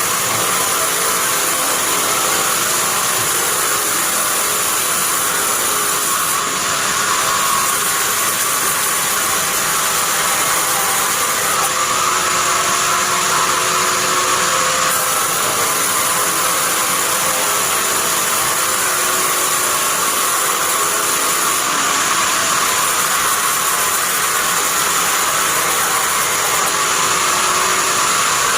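Sawmill bandsaw running, a loud steady mechanical noise without a break.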